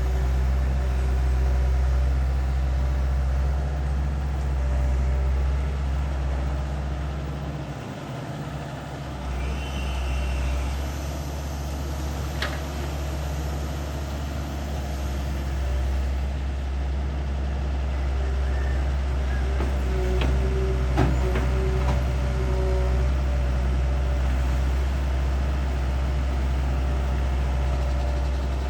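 Diesel engine of a long-reach IHI excavator running steadily under load, easing off briefly about eight seconds in, with a couple of sharp metallic knocks partway through.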